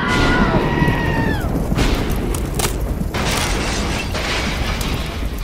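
Loud thunderclap and rumbling boom, with sharp cracks about two and two and a half seconds in, like a lightning strike. It opens with several high tones that fall away over the first second and a half.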